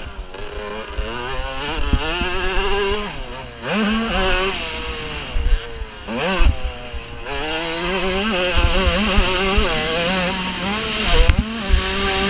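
Motocross bike engine heard from the rider's helmet, revving hard as it is ridden round a dirt track: the engine note climbs and drops again and again as the throttle is opened and shut through corners, with a few short breaks in the note.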